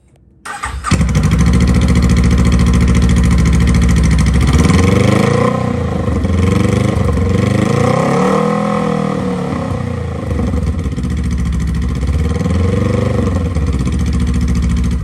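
2020 Honda Rebel 500's parallel-twin engine starting about half a second in and settling into idle. It is then revved a few times, with one longer rev in the middle.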